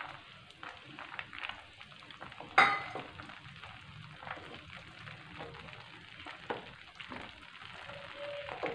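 Wooden spatula stirring roasted makhana (fox nuts) through hot gravy in a metal kadhai: soft wet scraping and small clicks against the pan, with one sharp knock about two and a half seconds in.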